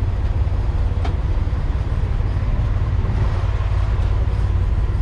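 1973 AEC Mandator tractor unit's diesel engine idling steadily, with a faint click about a second in.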